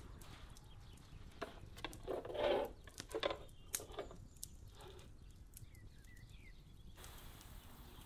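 A large steel pan of meat scraping and knocking as it is slid onto a metal rack in a wood-fired brick oven, with one louder scrape about two seconds in and scattered clicks from the glowing embers. A faint steady hiss takes over near the end.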